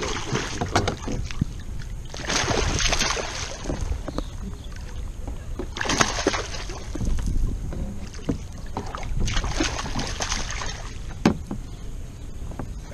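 A hooked fish thrashing and splashing at the water's surface right beside a small boat, in about four bursts a few seconds apart, as it is played in on the line.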